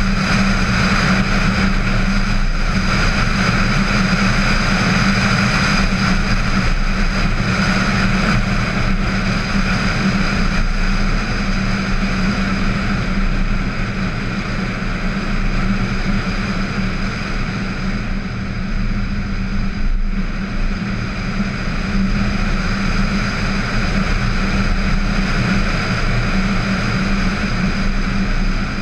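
VW Tiguan driving along a country road, heard from a camera on its bonnet: a steady rush of wind and road noise over a low engine drone, easing slightly in the middle.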